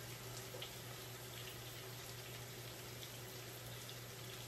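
Green beans cooking in butter and bacon fat, sizzling faintly and steadily with a few light crackles, over a low steady hum.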